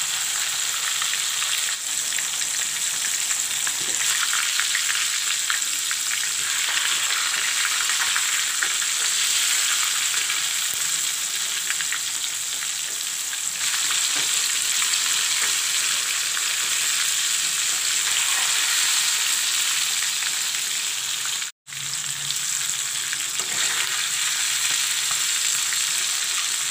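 Whole masala-marinated chicken frying in hot mustard oil in a karahi: a steady sizzling hiss. The sound cuts out for an instant about three-quarters of the way through.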